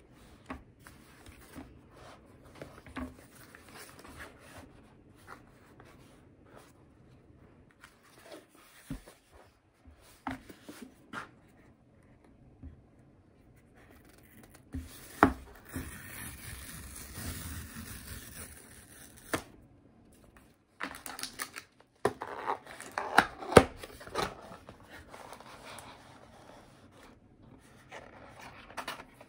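Cardboard shipping box being handled and opened by hand: scattered taps and scrapes, a longer tearing or sliding rasp about halfway through, then a flurry of knocks and cardboard rustles near the end as the boxed phone is lifted out of its cardboard tray.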